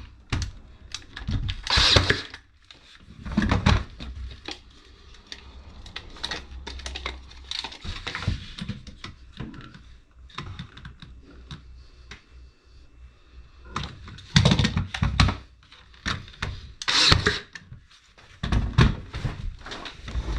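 Wooden boards and hand tools being handled: irregular knocks, taps and scrapes, with a few louder clattering bursts.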